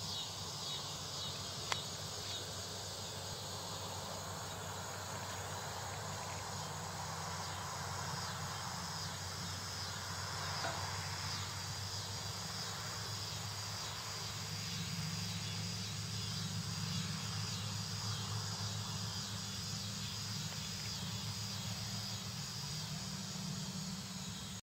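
Insects chirping in a steady, pulsing high-pitched chorus over a low steady rumble.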